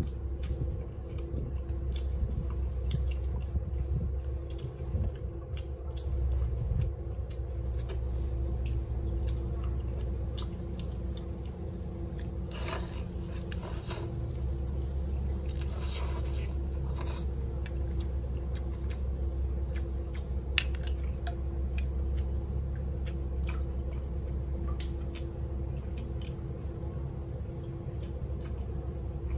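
A person chewing and biting food, with scattered small crunches and mouth clicks and a few brief louder rustles, over a steady low hum.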